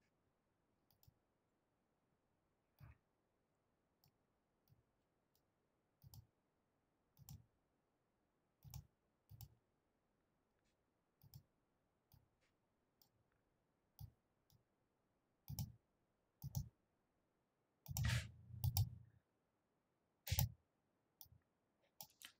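Computer mouse clicks, single and now and then in quick pairs, scattered with pauses of a second or more between them and near silence otherwise; they come more often and louder toward the end.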